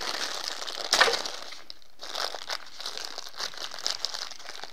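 Clear plastic packaging crinkling and rustling as small tripod feet are unwrapped by hand, with a louder rustle about a second in.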